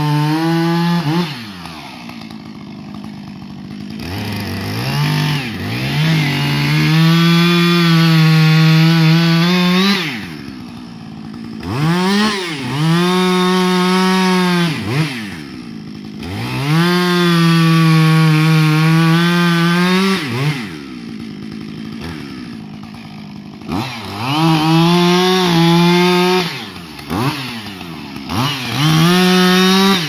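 Husqvarna 555 two-stroke chainsaw cutting pine. It revs up to full throttle for cuts of a few seconds each and drops back to idle between them, its note sagging a little under load.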